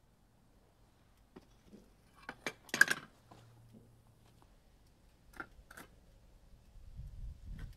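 Sharp metallic clinks and knocks of steel crucible tongs and a crucible being handled after pouring molten aluminum. The loudest cluster comes about two and a half seconds in, with a couple more clinks a few seconds later and a low rumble building near the end.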